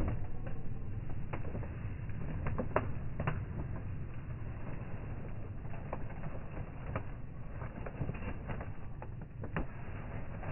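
Campfire crackling: irregular sharp pops and snaps of burning wood over a steady low rumble.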